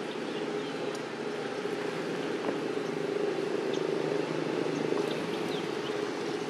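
Steady engine hum holding one pitch, with a few faint short high chirps over it.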